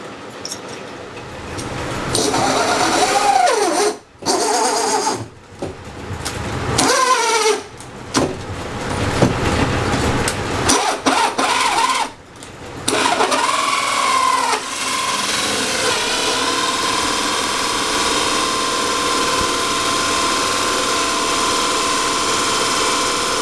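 Electric power tool motor switched on and off several times, its whine rising and falling in pitch as it speeds up and slows down, then held at a steady speed for the last third or so.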